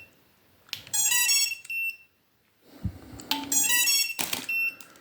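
A racing drone's ESCs play their electronic power-up beep melody through the motors as a LiPo battery's XT60 plug is pushed in, twice, each time after a sharp click of the connector, with short high beeps between. Here the power-ups come as the owner tests a CHNL battery whose XT60 plug fits so loosely that it can lose contact.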